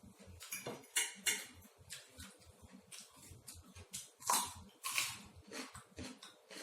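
Close-up eating sounds: chewing and crunching with a string of sharp clicks and crackles, a few louder ones about a second in and around four to five seconds in.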